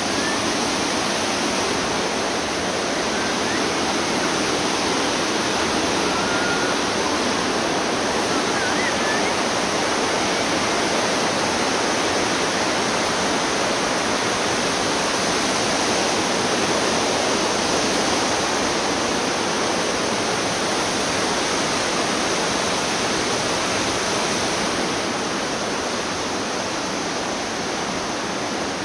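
Fast-flowing mountain stream rushing steadily below a footbridge, a dense even wash of water noise that eases a little near the end.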